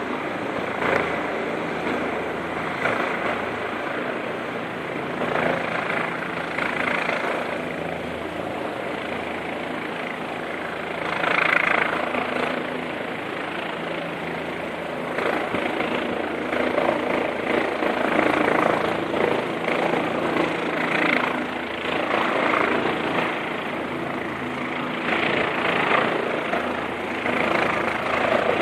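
Helicopter flying close overhead: a steady rotor and engine drone, with louder swells of noise every few seconds.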